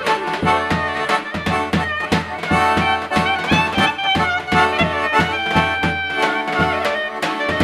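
A klezmer band playing an up-tempo tune: melody lines over a steady, even bass beat.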